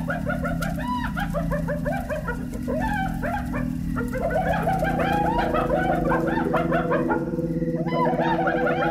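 A dense chorus of many small birds chirping and chattering at once, over a steady low droning tone that takes on higher notes about halfway through.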